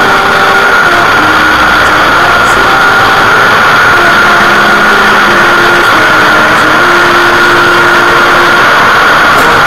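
Strings of firecrackers going off in a continuous, very loud dense crackle. A faint melody of held notes runs underneath.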